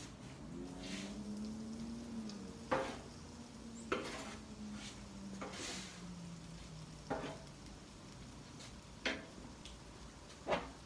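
Metal spatula scraping and tapping on the steel cooktop of a Blackstone flat-top griddle as shrimp and spaghetti noodles are tossed, with food sizzling on the still-hot surface. About five sharp scrapes are spread through, and a low hum slowly drops in pitch over the first seven seconds.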